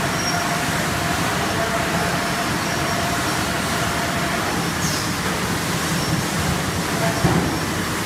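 Machinery of a 5-gallon bottled water filling line running: a steady mechanical hum and hiss with a faint whine that fades about halfway through, and a brief knock about seven seconds in.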